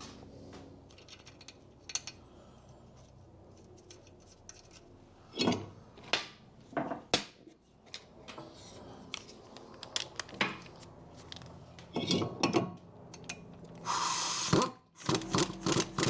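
Metal clinks, scrapes and knocks of a new front brake disc being turned on the hub to line up its locating grub screw hole, and the small screw being fitted by hand. A short hissing burst comes near the end.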